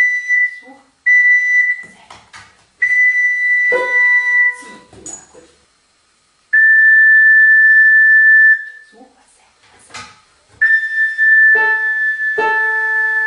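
A high, steady whistled note sounded several times, the longest held about two seconds, with a dog howling along at a lower pitch about four seconds in and again near the end.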